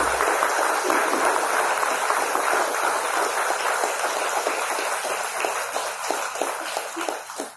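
Audience applauding in a hall. The clapping thins into separate claps and dies away near the end.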